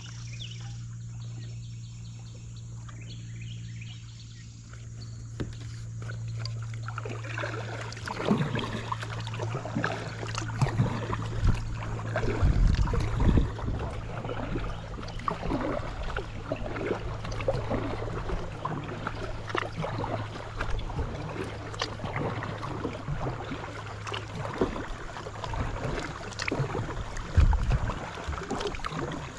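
Paddle strokes dipping and splashing in creek water, starting about seven seconds in and going on irregularly, with a few heavier splashes, over a steady low hum.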